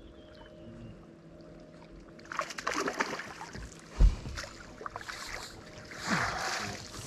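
Handling noise on a fishing boat: a steady low hum at first, then rustling and knocking, with one sharp knock about four seconds in.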